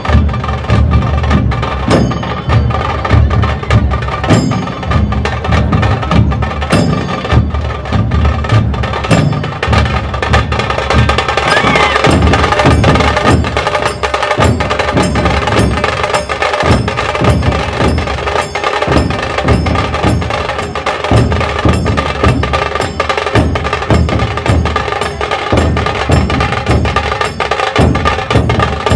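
Dhol tasha ensemble drumming: large barrel-shaped dhol drums pounding a low beat under the sharp, rapid stick strokes of tasha kettle drums, with metallic ringing over them, in a fast, steady rhythm.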